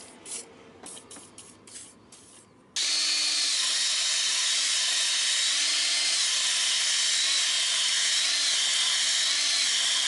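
A power tool spins an abrasive against the cylinder wall of a 5.7 L Hemi engine block, scouring surface rust from the bore. It makes a loud, steady scouring noise that starts suddenly about three seconds in, after a few faint clicks.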